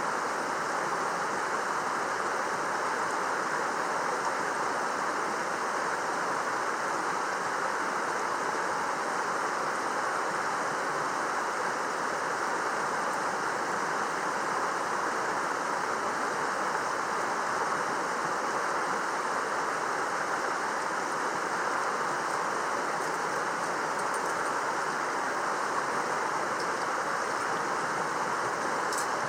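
Mountain stream running: a steady, even rush of flowing water.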